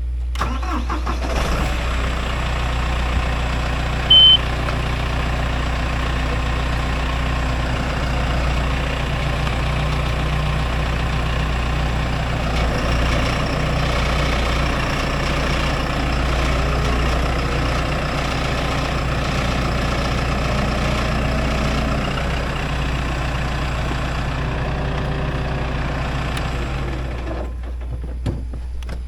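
Tractor engine running steadily as the tractor is driven, with one short high beep about four seconds in. The engine sound drops away near the end.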